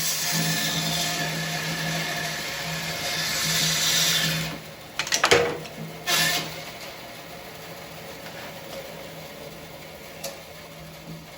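Grizzly G0555 14-inch bandsaw with a 1 hp motor and a 1/2-inch 3 TPI blade cutting through a thick, fairly dry piece of ash. The cut finishes about four and a half seconds in, a few knocks follow as the wood comes free, and then the saw runs on its own with a steady hum until near the end.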